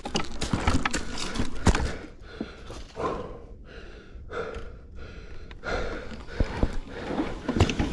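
Arctic Leopard electric bike ridden off road: rumbling tyre and ground noise with repeated sharp knocks and rattles from the bike, quieter for a few seconds in the middle.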